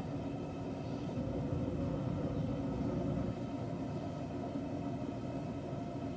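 Steady low roar of a forge heating steel, swelling a little for a couple of seconds about a second in.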